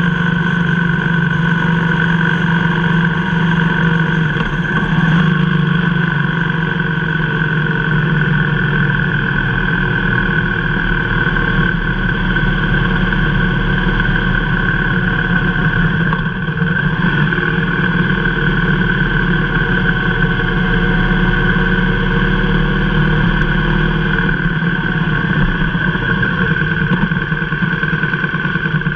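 Motorcycle engine running steadily while riding at an even cruising pace, its pitch almost constant, with a slight drop about five seconds in.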